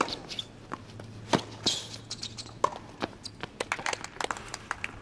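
Tennis rally on a hard court: a ball struck by a racket with a sharp pop, the loudest hit about a second and a half in, then a run of quick footsteps with a shoe squeak.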